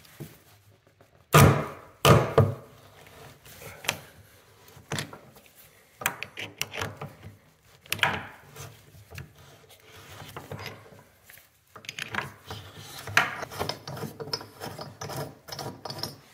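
Drain removal tool, levered with a screwdriver through its cross-hole, being turned counterclockwise to unscrew an old bathtub drain flange: irregular scraping, creaking and sharp clicks as the tool works in the drain and the old threads turn. The two loudest knocks come a little over a second in and again about two seconds in.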